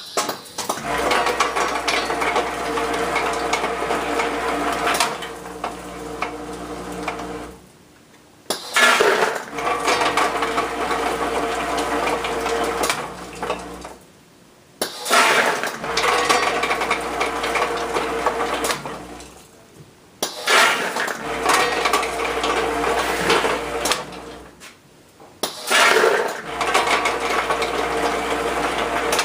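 Logical Machines Model S-4 weigh-fill machine running hard dog treats: a steady metallic clatter of treats over a low machine hum, cutting off for about a second and starting again with a sharp clatter about every six seconds, as each 14 oz fill is weighed and dumped.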